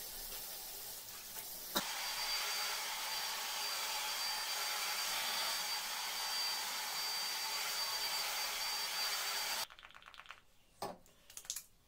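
A household appliance's motor running with a steady rush of air and a thin high whine. It gets louder with a click about two seconds in and cuts off suddenly near the end, followed by a couple of light knocks.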